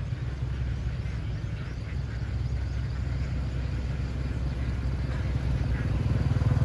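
An engine running with a steady low rumble that grows louder toward the end.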